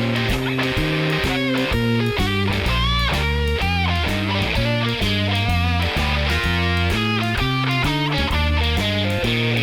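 Background music: a rock track with electric guitar and a stepping bass line over a steady beat.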